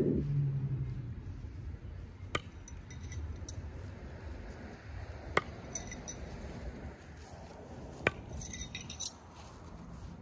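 Three sharp clicks, about three seconds apart, over a low steady background noise.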